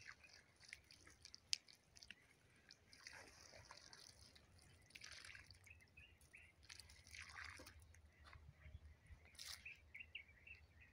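Faint trickling and dripping of water poured from a small cup into a tall plastic planting sleeve of soil, soaking it. Faint bird chirps are heard, more of them near the end.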